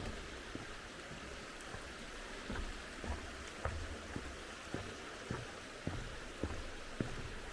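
Footsteps on a forest path, about two steps a second, over the steady rush of a mountain stream.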